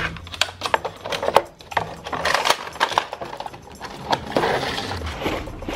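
Cardboard box and clear plastic packaging being handled: irregular clicks and taps with spells of crinkling rustle.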